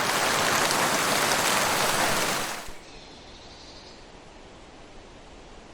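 Wind rushing loudly through a forest for nearly three seconds, then dropping sharply to a soft, steady wind hiss. Just after the drop a faint, high bird call sounds for about a second.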